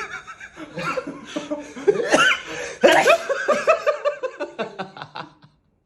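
Laughter in several voiced bursts, breaking into quick, short pulses of giggling that die away shortly before the end.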